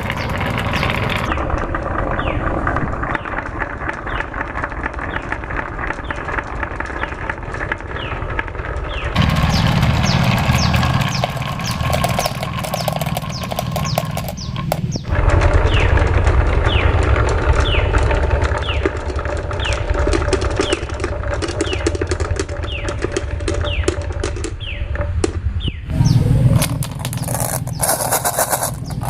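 Many marbles rolling and clattering down a wooden marble run: a dense, continuous rattle of small clicks and knocks with short ringing pings. The sound changes abruptly several times.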